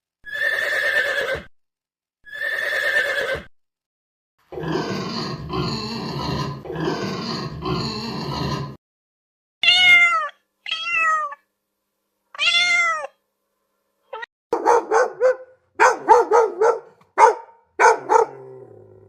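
A run of recorded animal calls of several different kinds, one after another with silent gaps: two short calls, a longer call in four pulses, three short calls that rise and fall in pitch, then a quick series of short calls.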